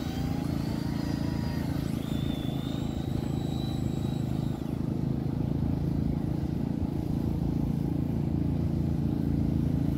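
A steady low engine-like drone, with a faint high whine over the first few seconds.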